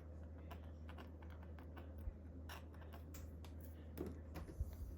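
Faint, scattered light clicks and taps of small plastic model-kit parts and a glue bottle being handled, over a low steady hum.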